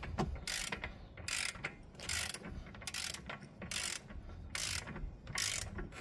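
Torque wrench ratchet clicking in short bursts, about seven strokes at an even pace, as the wrench is swung back and forth tightening a rear axle nut towards its 140 ft-lb spec.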